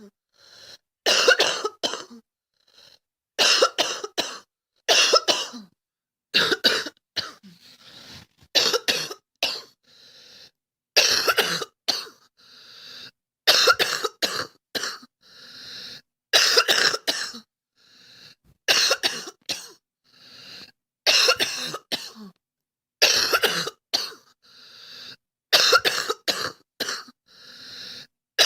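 A girl coughing repeatedly: about a dozen loud fits of two to four sharp coughs each, coming every two seconds or so, with quieter breathy sounds between the fits.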